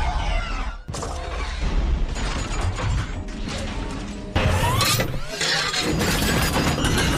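Mechanical clicking and scraping from hands-on repair work on a Galaxy Z Flip4 as it is taken apart for a hinge replacement, in short edited clips, over background music.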